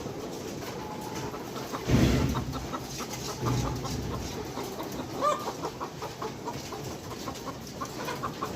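A flock of pullets clucking with short, rapidly repeated clucks. A loud low thump about two seconds in and a softer bump a moment later.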